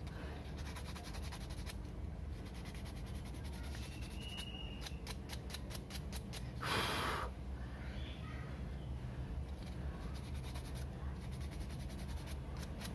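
Small plastic ball joint being sanded by hand with a sanding stick: faint, quick scratching strokes over a steady low hum, with one short, loud hiss about seven seconds in.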